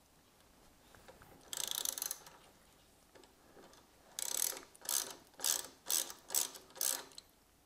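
Hand ratchet wrench clicking as a Torx bolt on a motorcycle muffler mount is loosened. One longer run of clicks comes about a second and a half in, then from about four seconds in a regular series of short ratcheting strokes, about two a second.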